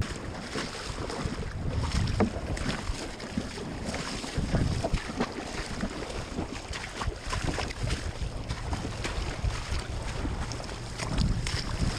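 Wind buffeting the microphone over water lapping against a kayak hull, with scattered light knocks.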